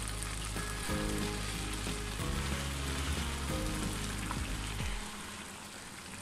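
Rice and lentils of a khichuri sizzling and bubbling in an open pot on a high flame, with most of the water already absorbed. Soft background music with low notes plays under it and stops about five seconds in.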